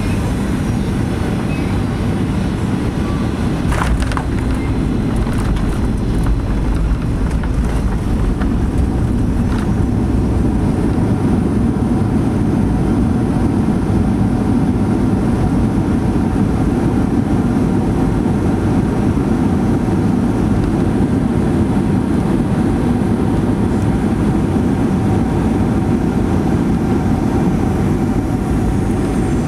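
Steady cabin noise inside a Boeing 737-800: the CFM56-7B engines and airflow make an even low rumble with a faint steady hum.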